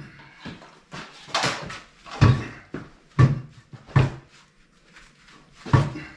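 Irregular knocks and thumps, about seven in a few seconds, from steel hand tire tools working a tire on its rim.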